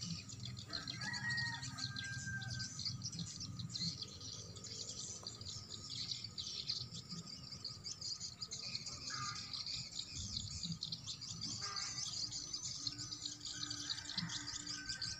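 Recorded swiftlet calls played as a lure through tweeter speakers on a swiftlet house: a dense, fast stream of high twittering chirps, with a few held whistle-like notes.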